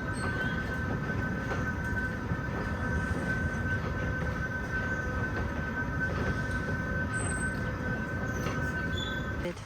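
Fairground ride running: a steady high-pitched mechanical whine over a low rumble, cutting off suddenly near the end.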